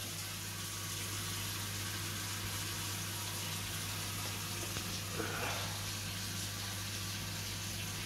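Hot water tap running steadily at a kitchen sink, heard as an even hiss, with a steady low hum underneath.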